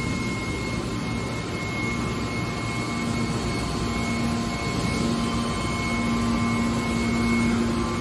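Hydraulic metal baler running steadily, with a low hum that strengthens about three seconds in and a thin high whine over a bed of machine noise.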